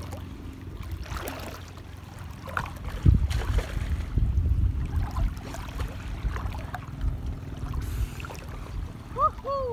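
A small boat moving over shallow water: a low, steady hum at first, then uneven low rumbling of water and wind buffeting the microphone from about three seconds in. A brief voice-like glide comes near the end.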